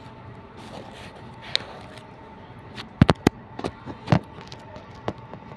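Metal spoon clinking against a stainless steel pot while scooping rice: a quick cluster of sharp clinks about three seconds in, then a few more spaced out.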